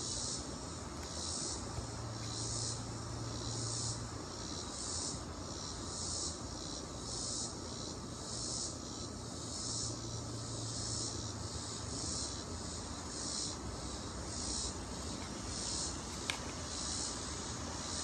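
A chorus of insects chirring in steady, even pulses, somewhat under two a second. A single sharp click sounds about sixteen seconds in.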